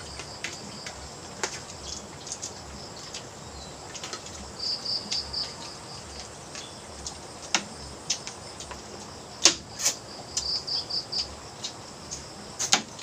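Crickets chirping in short, rapid trains at one steady high pitch, broken by a few sharp clicks and clacks; the loudest are two clacks close together about two-thirds of the way in.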